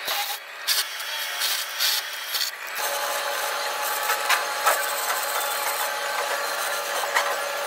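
A power drill with a long twist bit boring through sheet metal, with uneven grinding bursts. From about three seconds in, a welding arc gives a steady crackling hiss.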